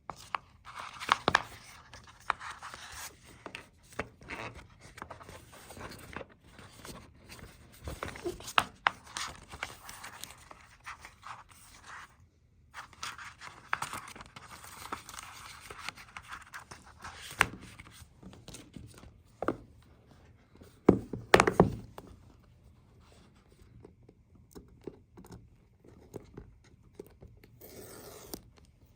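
Apple Watch Ultra cardboard packaging being handled and opened: scraping and sliding of card, with many scattered clicks and knocks. The loudest cluster of knocks comes about two-thirds of the way through.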